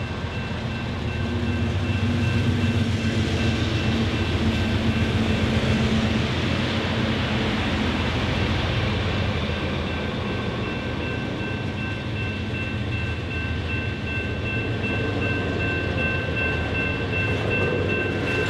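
Diesel locomotives hauling a heavy iron-ore train go past under power; their engine note is loudest over the first several seconds and then fades. A steady rumble of ore cars rolling on the rails follows. Grade-crossing warning bells ring steadily throughout.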